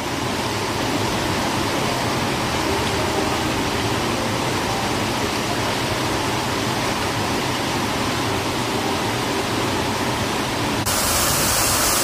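Whitewater of a rocky stream rushing and splashing over a small fall, a steady even rush of water. About a second before the end it switches abruptly to a brighter, hissier sound of water pouring down the walls of a garden fountain.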